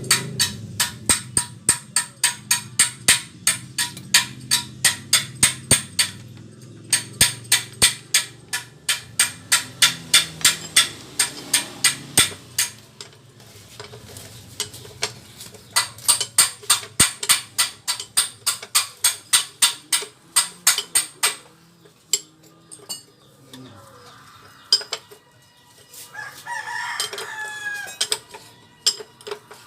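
Runs of sharp metallic clicks, about three a second, pausing now and then. Near the end a rooster crows once, for about two seconds.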